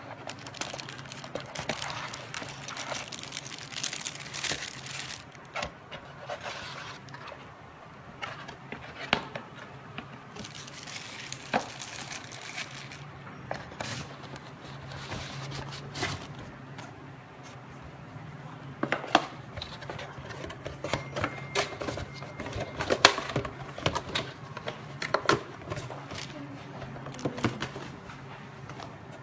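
Hands unpacking a camera box: cardboard box parts and plastic wrapping rustling and crinkling, with scattered sharp taps and knocks, more frequent and louder in the second half, over a steady low hum.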